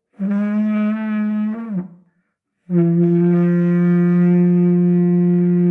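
Didgeridoo in B, made by Paco Moreno, played in two blows: a drone of under two seconds with shifting overtones, a short break, then a steady held drone from about halfway in.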